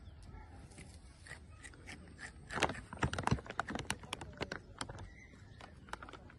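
Crinkling of a plastic snack bag of potato sticks being handled: a dense burst of sharp crackles about two and a half seconds in, thinning to scattered crackles afterwards.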